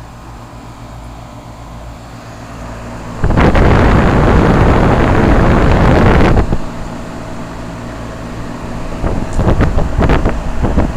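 Payne heat pump running in cooling mode with a Copeland reciprocating compressor: a steady low hum from the compressor and condenser fan. About three seconds in, a loud rush of air covers it for roughly three seconds, then the hum returns with uneven gusts of air on the microphone near the end.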